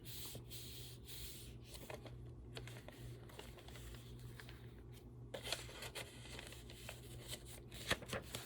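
Faint rustling and handling of paper and card journal pages, with a few soft ticks and brushes, over a steady low electrical hum.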